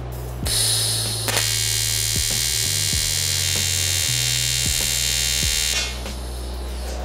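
TIG welding arc on 3 mm aluminium plate, buzzing steadily. It strikes about half a second in and cuts off near six seconds, when the torch is lifted.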